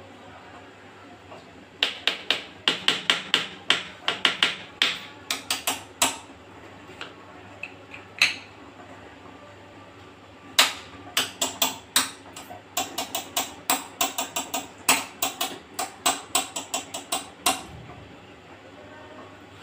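Rapid runs of sharp knocks, several a second, in two long stretches with a pause between them.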